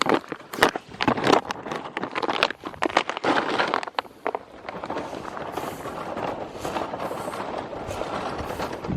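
Dry crackling and rustling for about four seconds, then steady wind noise on the microphone.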